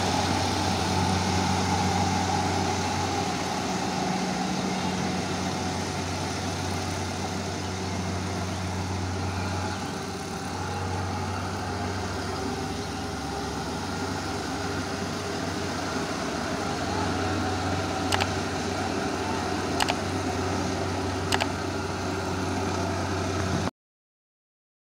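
Kubota Pro588 combine harvester's engine running steadily with a constant machine drone. Three sharp clicks come in the last few seconds, and then the sound cuts off abruptly.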